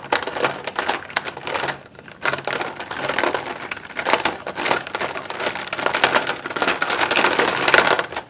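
Plastic felt-tip markers (Crayola Scentsations) clattering and rattling against each other and against a plastic tub as two pairs of hands rummage through them, a dense run of small clicks.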